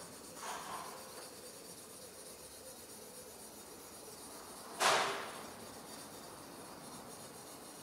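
Small hand-held sharpening stone rubbed along the steel of a katana blade: a soft scraping stroke just after the start, then a single louder, sharper rasp about five seconds in that fades quickly.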